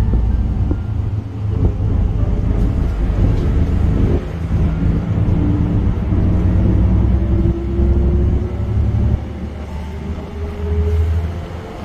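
Bus running along a road, heard from inside the passenger cabin: a loud, deep, steady rumble of engine and road noise. A whine rises in pitch a few times as the bus changes speed.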